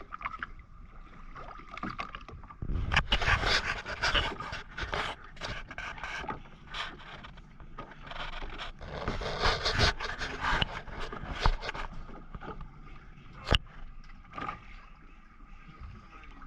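Scraping and many irregular knocks of handling aboard a small fishing boat, with two longer rough, noisy stretches about three and nine seconds in and a single sharp knock near the end.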